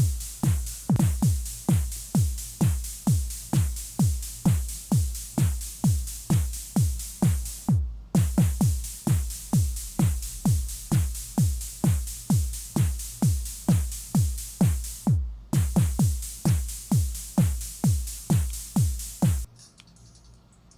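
Bass-heavy electronic dance music with a steady kick drum at about two beats a second, played as a test of the earphones' bass and sound quality. The high end drops out briefly twice, and the music cuts off suddenly near the end.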